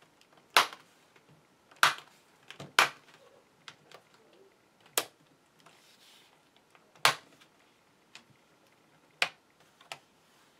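Plastic snap-in clips of an HP Pavilion G7 laptop's screen bezel popping loose one by one as the bezel is pried off by hand. There are six sharp snaps a second or two apart, with fainter clicks between them.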